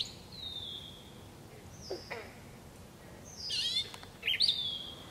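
Songbirds singing: a few separate high whistled notes, some sliding down in pitch, and a short warbled phrase, with gaps between them.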